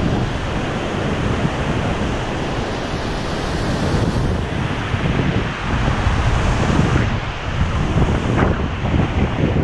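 Ocean surf washing in over the shallows, with wind buffeting the microphone.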